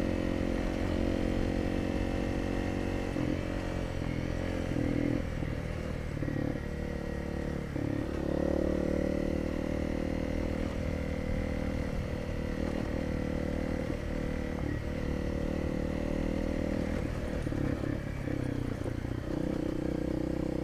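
Honda CRF dual-sport motorcycle's single-cylinder engine running steadily while ridden on a dirt road, its pitch shifting a few times with the throttle, over a low rumble of wind and road noise.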